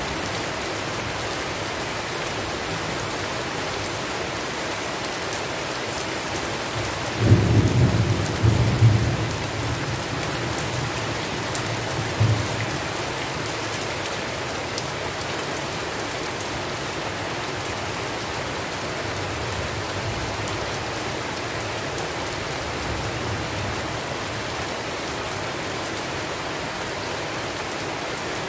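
Steady rain with a roll of thunder about seven seconds in that rumbles low for several seconds, with a last peak around twelve seconds, then fades back under the rain.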